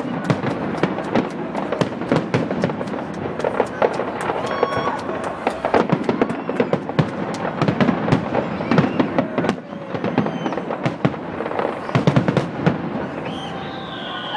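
Fireworks going off in a dense, continuous barrage: many sharp bangs and crackles in rapid succession, overlapping one another.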